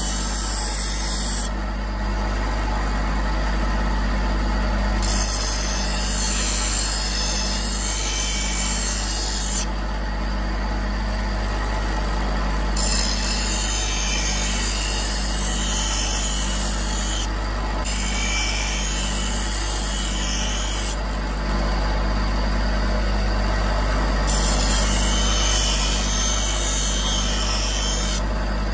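Steel knife blank, cut from an old high-carbon band saw blade, being ground against the wheel of a motor-driven bench grinder. The motor hums steadily, and a grinding hiss rises and falls over several passes of a few seconds each as the blade is pressed on and eased off.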